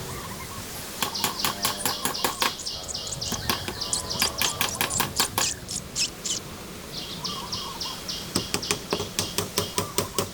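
Rapid, irregular sharp taps and knocks, a few a second, typical of hand-tool work on wood, with birds chirping and warbling over them.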